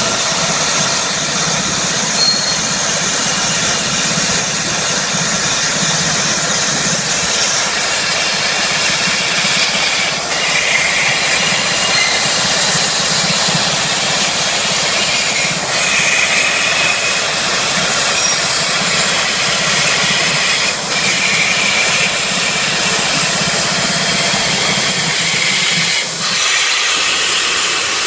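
CNC plasma cutter cutting steel: the arc and its air jet make a steady, loud hiss over a low hum. The hiss dips briefly every few seconds, and the hum drops out near the end.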